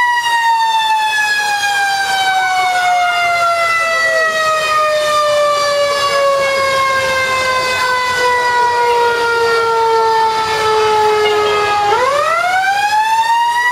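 Fire engine's mechanical siren slowly winding down in pitch for about twelve seconds, then quickly spinning back up near the end.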